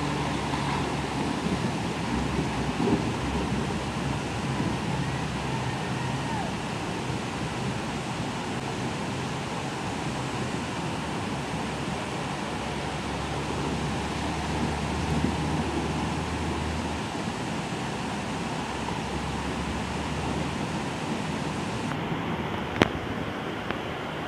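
Fast, muddy river water rushing steadily, with a truck engine running low underneath during the first few seconds as the truck fords it. One sharp click near the end.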